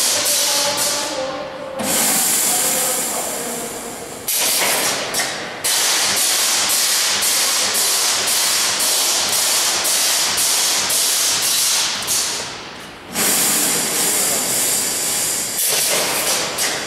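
Wire mesh panel welding machine running, giving a loud steady hiss that breaks off and restarts abruptly a few times.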